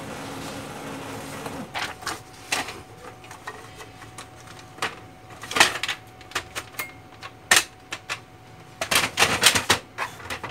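HP LaserJet 1320 laser printer running steadily at first, its motor stopping about a second and a half in, then a string of irregular mechanical clicks and clacks as it goes through its start-up.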